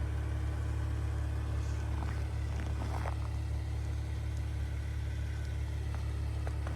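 Steady low rumble of a car driving on the highway, heard from inside the cabin, with a few faint ticks over it.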